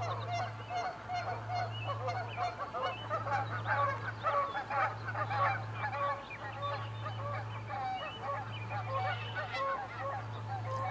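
A busy outdoor chorus of many birds calling at once, short overlapping yelping calls with no pause, over a steady low hum.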